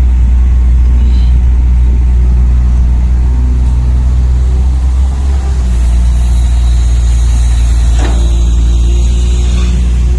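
Radio-controlled scale construction models running, with a loud, steady low engine-like drone. A high hiss joins about six seconds in, and there is a single sharp knock about eight seconds in.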